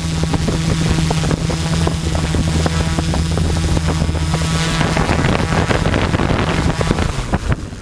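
Quadcopter's brushless motors and propellers droning steadily, heard from the onboard GoPro, with wind crackling on its microphone. The drone fades in the last couple of seconds as the craft descends to land.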